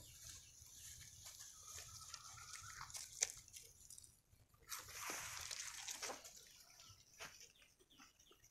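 Faint rustling and light clicks of puppies scampering through grass, weeds and dry leaves, with a sharp click about three seconds in and a longer, louder rustle about five seconds in.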